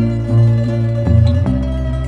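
Background music: plucked-string notes over a bass line that changes note every half second or so.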